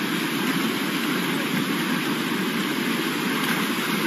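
Steady rush of a fast-flowing river running over stones.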